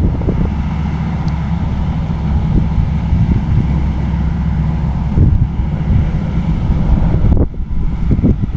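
New Holland CX8070 combine harvester running steadily while harvesting barley, with wind buffeting the microphone. Near the end the steady machine sound drops back and gusty wind noise takes over.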